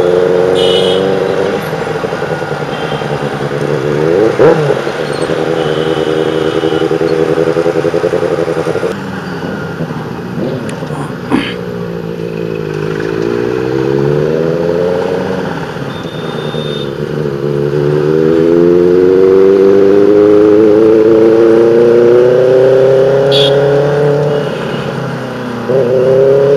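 Motorcycle engine heard from the rider's seat in traffic. Its pitch climbs in long pulls as it accelerates and drops back when the throttle closes, with two long rising pulls in the second half.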